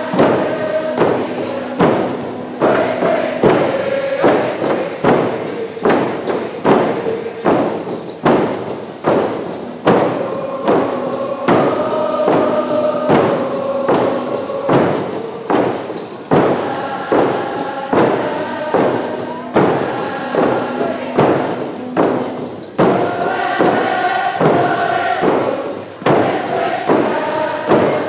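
Nisga'a hand drums (painted frame drums) struck together in a steady, even beat, while a large group sings a held, chant-like song in unison.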